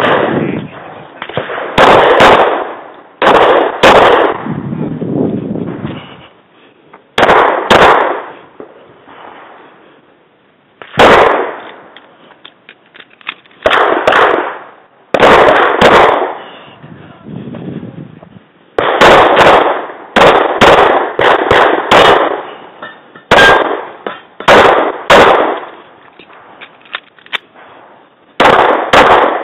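9mm Ruger SR9c pistol fired about two dozen times, mostly in quick pairs of shots, with a short pause partway through. Each shot is loud and sharp with a brief fading echo.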